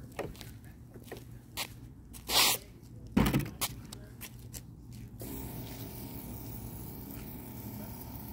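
Footsteps on a concrete sidewalk with knocks and rubbing from the handheld phone, two louder scuffing bursts about two and a half and three seconds in. A steady low hum comes in about five seconds in.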